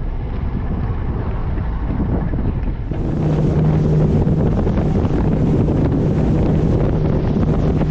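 Wind buffeting the microphone on a small boat at sea. About three seconds in it gets louder and the steady low hum of the boat's motor comes in.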